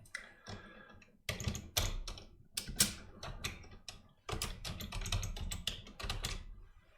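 Typing on a computer keyboard: three runs of rapid keystrokes with short pauses between them, as an SSH connection command is entered.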